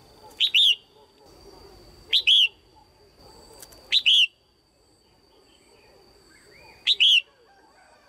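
Red-whiskered bulbul calling: four short, loud, sharp calls spaced unevenly, each a quick double note that sweeps up and then falls.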